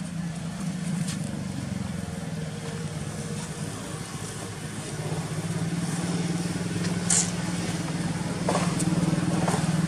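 An engine running steadily, a low hum that grows louder after about eight seconds, with a brief hiss about seven seconds in.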